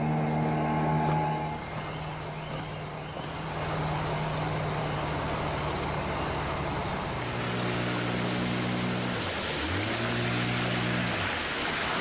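Outboard motor of a small river boat running steadily under way, with water rushing and spraying past the hull. About ten seconds in, the engine note drops briefly and comes back up.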